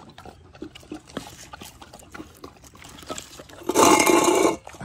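Dogs eating wet, water-softened kibble from a stainless steel bowl: a run of small clicks and mouth sounds, then a much louder burst of lapping and slurping lasting just under a second near the end.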